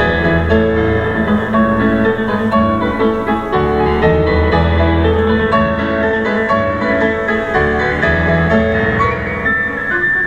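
Instrumental music led by piano, with a steady flow of notes.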